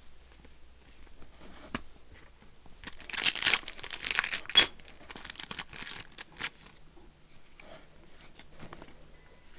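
Foil booster pack wrapper crinkling as it is torn open and pulled off the cards, loudest from about three seconds in to about five seconds. Afterwards, fainter rustles and ticks of trading cards being handled.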